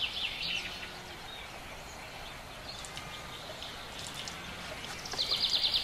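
Outdoor ambience with birds chirping here and there over a steady hiss; about five seconds in, a fast trill of rapidly repeated high notes.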